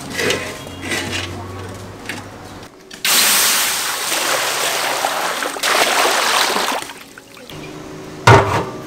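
Water poured from a metal bowl into a very hot cast wok, hissing loudly as it flashes into steam, in two pours from about three seconds in. Near the end, one sharp metal clank as a large aluminium lid is set on the wok.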